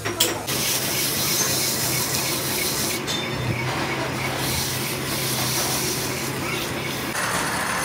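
Metal lathe running, turning a hydraulic cylinder barrel in a steady rest: a steady mechanical hiss over a low hum, with a couple of sharp knocks at the very start.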